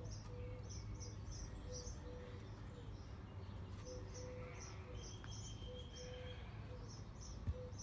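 Small bird chirping over and over, faint short high chirps two or three a second, over a low steady hum.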